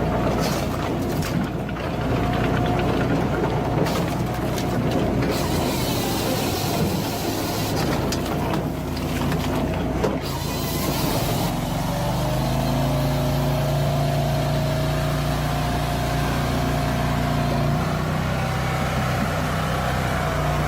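A heavy machine's engine running steadily, with clattering, knocking mechanical noise over it in the first half. The engine hum comes through more evenly in the second half.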